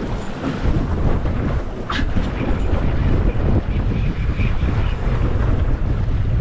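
Wind buffeting the microphone of a boat under way at sea, with water rushing past the stern. The sound is loud and steady.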